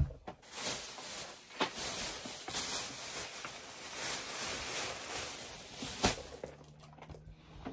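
Rustling and handling noise as small items are gathered up to be put into a handbag, with a sharp knock at the start and another about six seconds in; the rustling dies down near the end.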